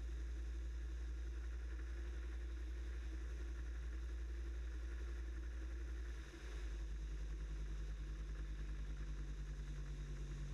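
Aerolite 103 ultralight's two-stroke engine running steadily in flight. About six seconds in the sound dips briefly and the engine note changes to a lower, pulsing beat, as the aircraft descends toward the runway.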